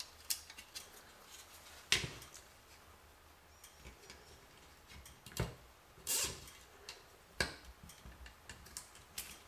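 Cable ties being threaded through a 3D-printed plastic quadcopter frame and pulled tight, with scattered clicks and knocks as the plastic parts are handled. The loudest knock comes about two seconds in, and a short rasp comes about six seconds in.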